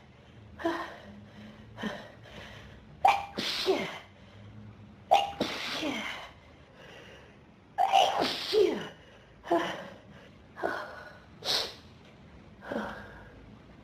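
A person sneezing over and over in a fit of allergic sneezes set off by dust. Each sneeze comes a second or two after the last, with a sharp gasping in-breath before several of them.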